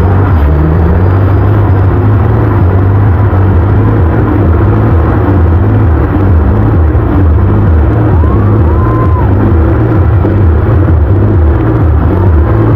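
Scania 112H's compound twin-turbo diesel engine held at high revs during a burnout, with the rear tyres spinning on the asphalt.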